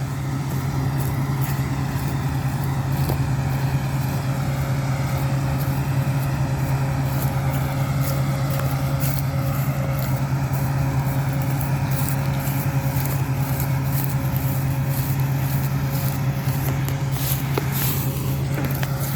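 Combine harvester cutting oats, its engine and threshing gear running at a steady pitch with a constant low hum. Scratchy crackles at the microphone join in during the second half.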